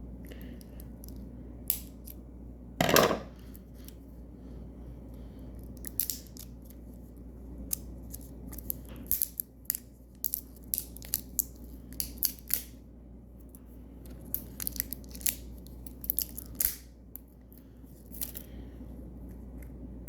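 Plastic wrapping being pulled and peeled off small dough tubs by hand: irregular sharp crinkles and snaps, with a louder rustle about three seconds in.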